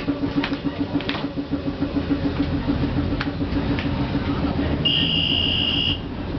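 New Orleans streetcar heard from inside while it runs: a low hum pulsing several times a second, with a few sharp clicks. About five seconds in, a steady high electronic beep sounds for about a second.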